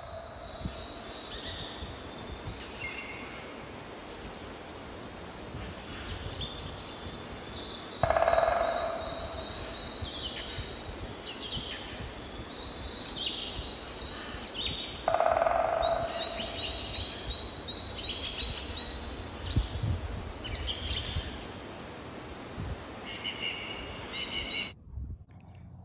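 Outdoor garden ambience of several songbirds chirping and trilling, with two louder, lower calls about 8 and 15 seconds in, each trailing off over a second or so. The sound cuts off abruptly shortly before the end.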